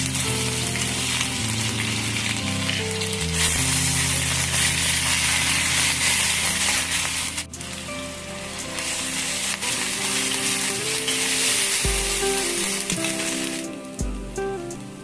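Food frying in hot oil in a pan, sizzling steadily, with a brief break about halfway through and stopping shortly before the end. Background music plays underneath.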